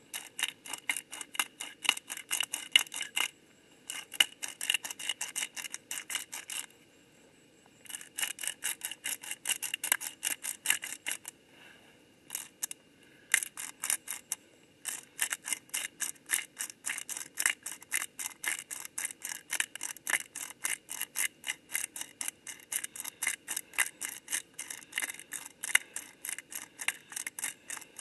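Hand pepper mill being twisted over a cooking pot, its grinder clicking rapidly, about five clicks a second, in runs broken by short pauses.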